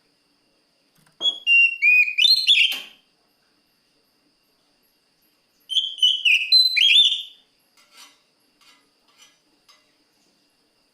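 Oriental magpie-robin (kacer) singing two loud, clear whistled phrases of gliding, falling and rising notes, a few seconds apart, followed by a few faint ticks. This is the full, open song a male uses to call out a rival.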